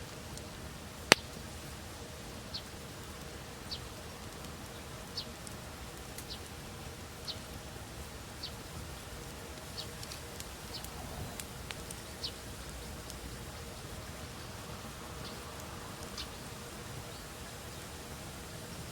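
Wood fire crackling: scattered small sharp pops at irregular intervals over a low steady rush, with one loud crack about a second in.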